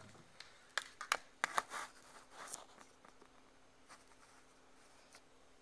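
Handling noise of a camera being moved and set down: a quick cluster of clicks, knocks and rustles in the first couple of seconds, then a few faint ticks over a faint steady hum.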